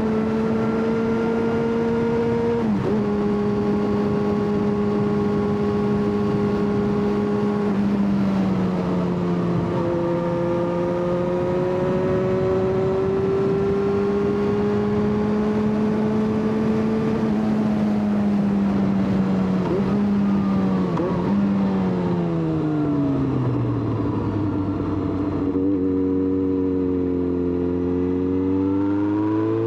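Yamaha XJ6 motorcycle's inline-four engine pulling at steady revs on the road, with a few brief dips in pitch at gear changes. About two-thirds of the way in the revs fall away as the bike slows, run low for a few seconds, then climb again near the end.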